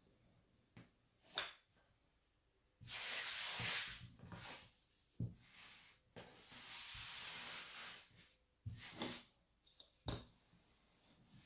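Pastry dough being worked on a floured countertop with a wooden rolling pin: two stretches of dry scraping noise, the first about a second long and the second about two seconds long, as the pin rolls and the dough is slid and turned on the flour. Several short light knocks come in between.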